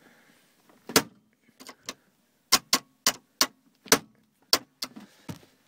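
Rubber mallet whacking the ignition lock cylinder on a 2005 Jeep Grand Cherokee's steering column: about a dozen sharp knocks in quick, uneven succession, the first the loudest. The blows are meant to jar loose a sticking lock cylinder that keeps the key from turning.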